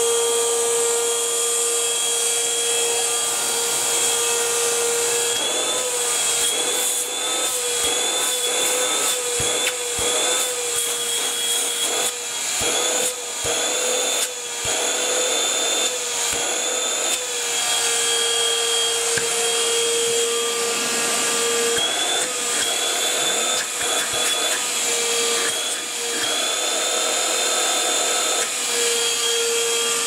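A NOVETE cordless handheld wet and dry vacuum cleaner running with a steady high motor whine. Between about six and seventeen seconds in, and again briefly later, its pitch wavers and small clicks and rattles come through, then it settles back to a steady whine.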